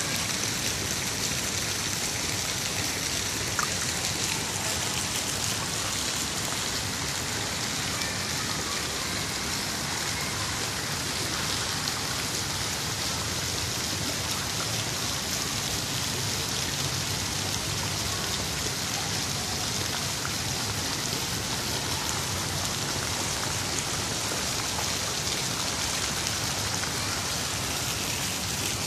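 Falling water: a steady, high-pitched hiss with no breaks or distinct events.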